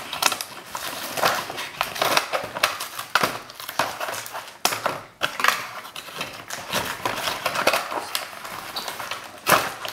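Cardboard packaging being handled: a run of irregular crinkles, scrapes and small knocks as a plastic dart clip is worked free of its cardboard insert, with a louder knock near the end.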